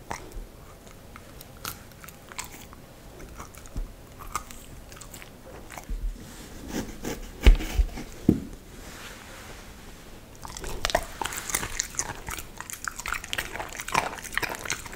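A Samoyed biting and chewing a piece of food, close to a microphone: scattered bites at first, two loud bites a little past halfway, then fast, steady chewing for the last few seconds.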